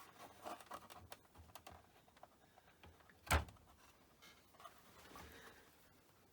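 Small clicks and rustles of hands working at the BBC Model B's power supply wiring, pulling spade connectors off their tabs, with one sharp knock about three seconds in.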